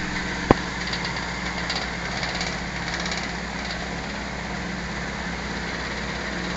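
Antique Diehl electric fan running steadily at speed: a motor hum and blade whir, with a light rattle from blades that are not quite balanced. A single sharp click about half a second in.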